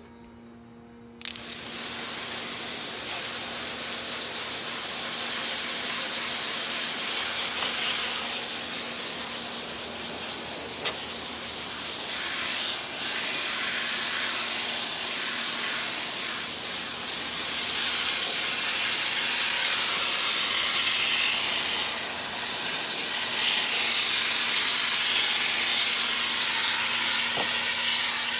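A water jet from a spray wand hisses steadily against the fins of an ATV radiator, rinsing off coil cleaner and wheel acid. It starts suddenly about a second in.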